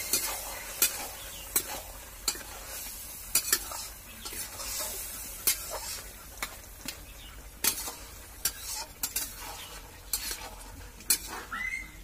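A metal spatula scraping and clacking against a metal wok as a thick curry is stirred, with the food sizzling underneath. The strokes come irregularly, about one or two a second.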